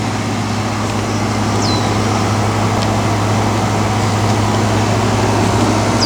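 Air conditioner running with a steady hum. Two brief high falling chirps sound over it, about two seconds in and near the end.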